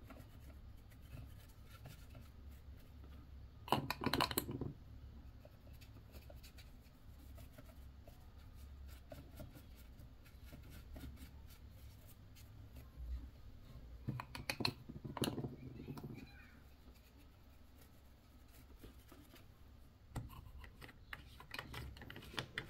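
Small scratching and clicking sounds of close-up hand work, with two louder bursts of scraping, about four seconds in and again after about fourteen seconds.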